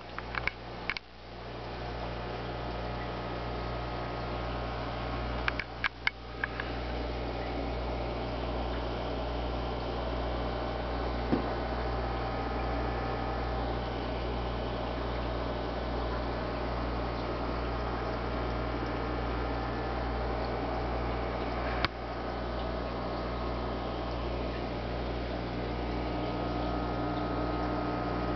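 Aquarium pump running with a steady low hum. A few brief clicks near the start, about six seconds in, and once about 22 seconds in.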